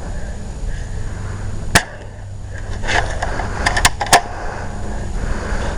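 Airsoft guns firing: a single sharp snap about two seconds in, then a quick run of four or five more snaps a second or so later, over a low rumble of wind and handling on the microphone.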